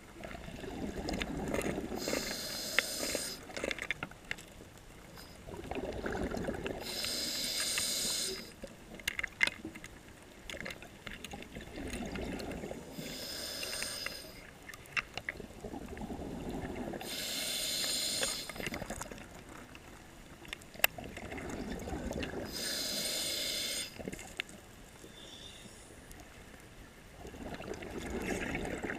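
Scuba diver breathing through a regulator, about one breath every five seconds. Each breath is a lower rushing, bubbling sound followed at once by a higher hiss, with light scattered clicks between breaths.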